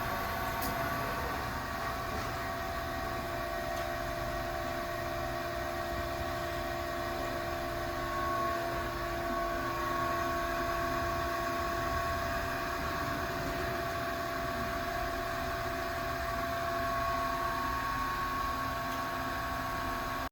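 Studer S33CNC CNC cylindrical grinder running idle: a steady machine hum with several steady tones over a low rumble. One of the tones stops about twelve seconds in.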